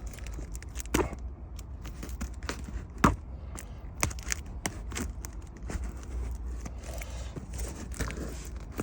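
Car key scraping and cutting through packing tape on a cardboard shipping box, with keys jangling, irregular sharp clicks and scratchy rustling as the tape is torn.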